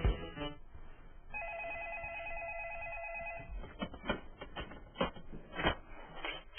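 Corded landline telephone ringing with one electronic warbling trill lasting about two seconds, followed by several sharp clicks and knocks as the handset is grabbed and picked up.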